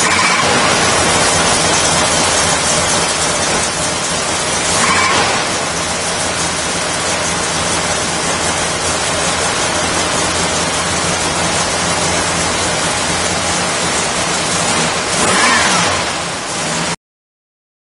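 1979 Dodge Lil Red Express's 360 V8, with a mild camshaft and long-tube headers, idling steadily, blipped briefly on the throttle about five seconds in and again near the end. The sound cuts off suddenly about a second before the end.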